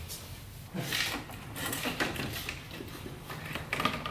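Rustling and light, irregular knocking as a plastic radiator fan and its mounting are handled and worked into place in the engine bay, with a sharper knock near the end.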